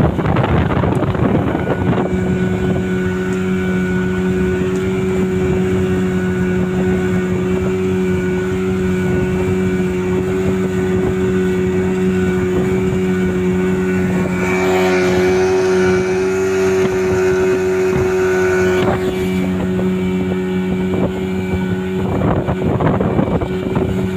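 A speeding rigid inflatable boat's engine running at a steady, unchanging pitch, with wind and rushing water from the hull mixed in.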